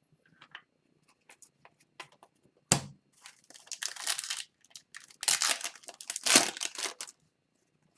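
A hockey card pack's wrapper being torn open and crumpled by hand. There is a sharp snap about three seconds in, then two spells of crinkling.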